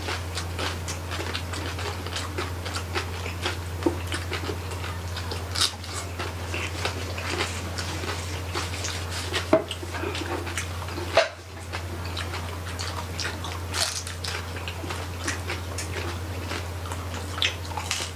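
Close-miked chewing and biting of roasted pig (lechon), with many small crackles and mouth clicks and a few louder snaps, over a steady low hum.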